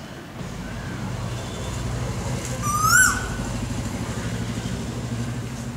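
Male Asian koel giving one loud call about three seconds in, a note that rises and then drops away, with a fainter short call shortly before it. A steady low hum runs underneath.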